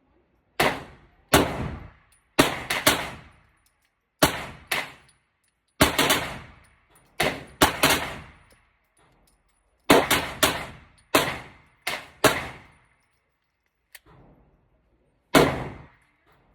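Walther PDP 9mm pistol firing about twenty shots at an uneven pace, singly and in quick pairs, each crack followed by a short echo.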